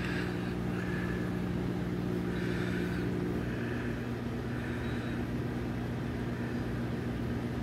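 Steady low electrical hum from a running mains-powered appliance, with a light hiss over it.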